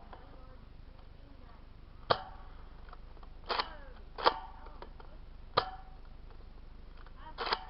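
Nerf blasters firing foam darts in a dart battle: about five sharp snaps, each with a short ring, two of them coming as quick doubles.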